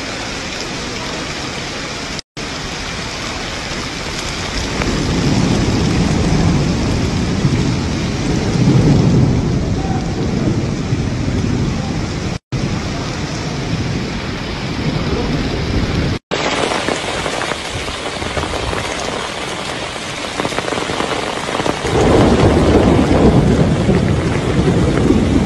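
Heavy rain pouring onto open stone paving, a dense steady hiss, with deep rumbling swells about five seconds in and again near the end. The sound drops out for an instant three times where clips are cut together.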